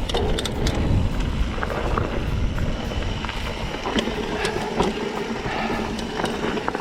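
Mountain bike rolling along a dirt trail: wind rumbling on the microphone, tyre noise, and scattered sharp clicks and rattles from the bike over rough ground.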